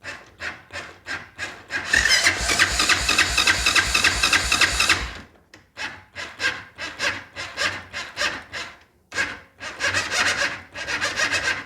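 Honda Foreman ATV's electric starter, jumped straight from the battery, cranking the engine over in a loud rasping run of about three seconds, with strings of short rhythmic pulses before and after. The starter turns the engine, showing that the starter itself is good and pointing the no-start at the solenoid or relay.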